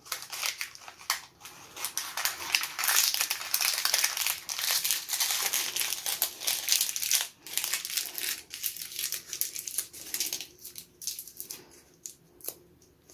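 Butter paper crinkling and crackling as it is rolled around soft kebab mixture and twisted shut at the ends like a toffee wrapper. The crackle is dense at first and thins to scattered crinkles near the end.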